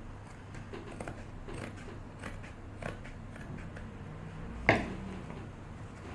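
Scissors snipping through a thin piece of leather to cut off a strip: a run of short, irregular snips, with one louder click near the end.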